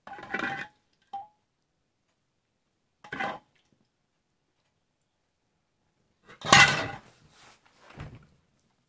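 A steel ladle clinking and scraping against a stainless-steel plate as dal is served over rice. There are a handful of short clatters, the first ones briefly ringing, and the loudest comes about six and a half seconds in.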